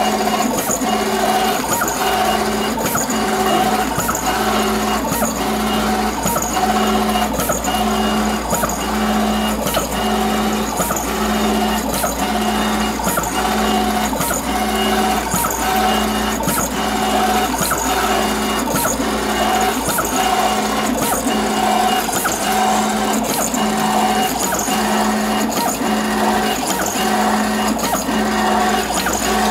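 FastJet II inkjet pattern plotter printing: its motors hum in a repeating cycle that breaks off briefly about once a second, with regular clicks between.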